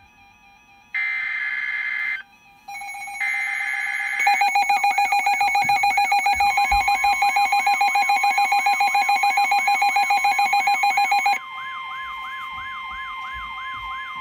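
Midland NOAA weather radio sounding a tornado warning alert. First come two short buzzy bursts of SAME digital header data about a second apart. Then a loud pulsing alarm tone starts, joined by a siren that sweeps up and down several times a second over a steady tone. The pulsing stops a few seconds before the end while the siren goes on.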